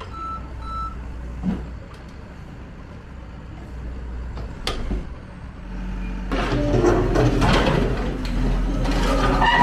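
Backhoe loader's reversing alarm beeping twice at the start over its diesel engine running low, a couple of knocks, then from about six seconds in loud crashing and clattering of concrete blocks breaking and falling as the machine demolishes a wall.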